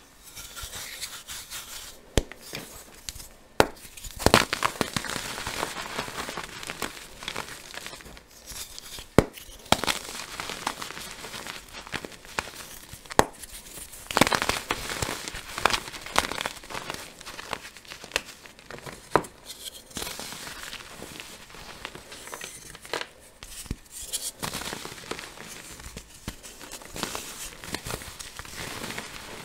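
Bare hands crushing blocks of dyed gym chalk and squeezing the loose powder: dry crunching and crumbling, with sharp cracks scattered throughout.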